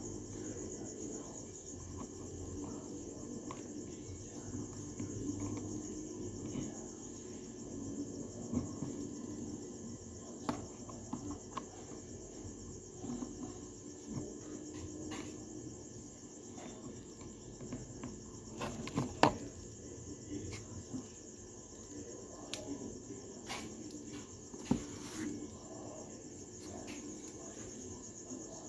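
Small metal clicks and light taps as a screwdriver works on a spinning fishing reel's small metal parts, scattered and irregular, the loudest about two-thirds of the way through. A steady high chirping of crickets goes on behind them.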